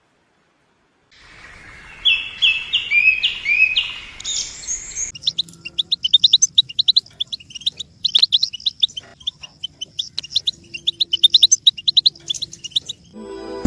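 Small birds chirping: after about a second of silence, a few rising whistled notes, then, about five seconds in, a fast run of short high chirps, many a second.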